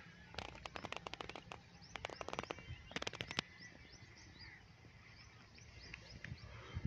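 Outdoor farmland ambience with birds chirping faintly and high. Three bursts of rapid clicks or crackles come in the first three and a half seconds.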